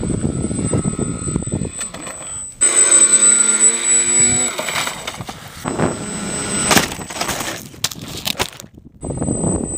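Foam RC plane in flight and crashing: wind rush and an electric motor whine that falls in pitch, then several sharp knocks and cracks as the plane hits the ground.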